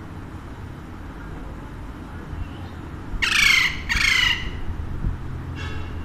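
Alexandrine parakeet squawking: two loud, harsh calls of about half a second each, back to back about three seconds in, and a fainter third call near the end.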